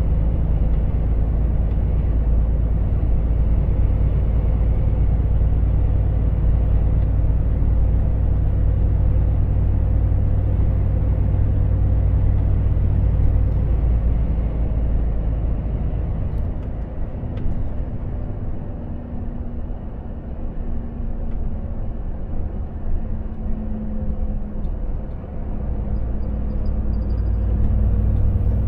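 Volvo FH truck heard from inside the cab while driving at road speed: a steady low engine hum with road noise. About halfway through the engine note drops and goes quieter as the driver eases off and the truck slows, then it picks up again near the end.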